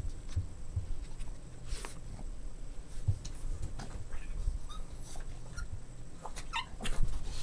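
Boston Terrier puppies playing, with whimpers and a few short high squeaks near the end over frequent soft low bumps.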